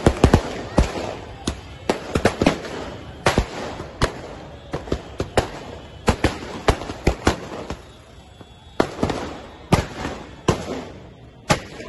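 Firecrackers going off in a fast, irregular string of sharp bangs, several a second, with crackling between them.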